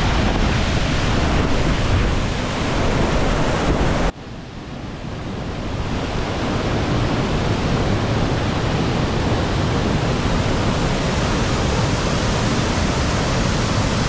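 Steady rushing of Corlieu Falls, an 80-foot cascading waterfall, heard up close. About four seconds in the sound drops off suddenly, then swells back to full over the next two seconds.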